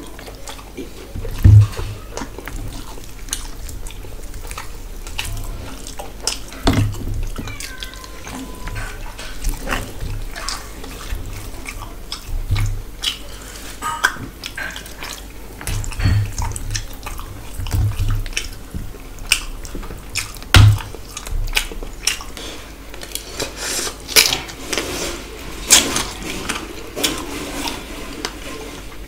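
Bare hand mixing rice with curry on a steel plate: wet squelching and clicks of fingers against the metal, with a few dull thumps, the loudest about a second and a half in and again about two-thirds through.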